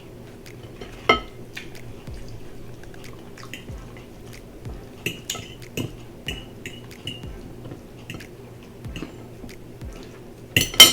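Cutlery clinking and scraping on a plate while a piece of rotisserie chicken is cut: a sharp ringing clink about a second in, several lighter clinks in the middle, and the loudest clatter near the end.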